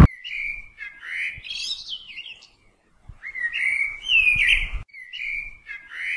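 High chirping calls like a bird's, in four short phrases of rising and falling whistles with brief gaps between them.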